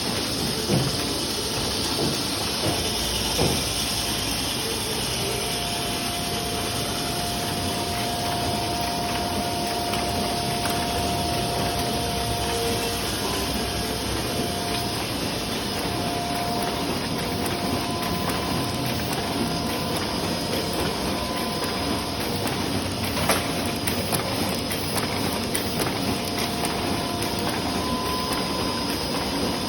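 Large book-printing press running: a steady mechanical din with a faint high whine coming in about five seconds in.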